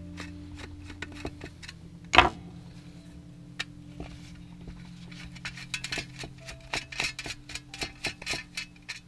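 Screwdriver working a small screw out of an LED flood light's aluminium reflector: a run of quick metallic clicks, with one louder knock about two seconds in and faster clicking in the second half.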